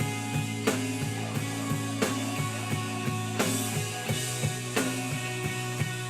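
Live rock band playing an instrumental passage: a drum kit keeps a steady beat, about one hit every two-thirds of a second, under a held bass note and sustained guitar tones, with no vocals.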